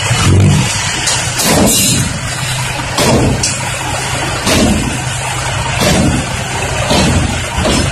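Isuzu six-wheel dump truck's diesel engine running steadily while its raised tipper bed is lowered after dumping soil, with several brief knocks along the way.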